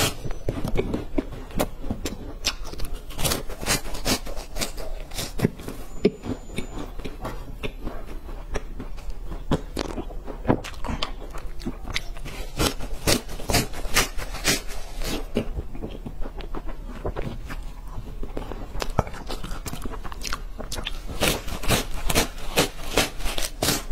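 Close-miked biting and chewing of crunchy chocolate sticks: many sharp, irregular crunches as the sticks are bitten off and chewed.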